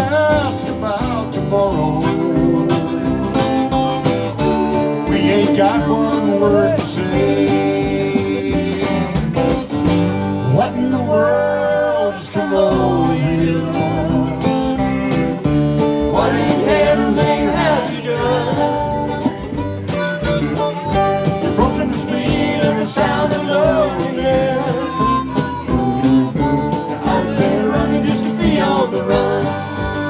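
Live country-folk band playing: strummed acoustic guitar, electric guitar and electric bass, with harmonica and singing.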